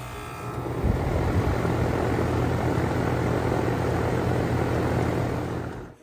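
Outdoor central air conditioner condenser unit starting up for a test run after its swapped common wiring was corrected and its capacitor replaced: a rising whine as it spins up, a thump about a second in, then a steady electrical hum under an even rush of fan air.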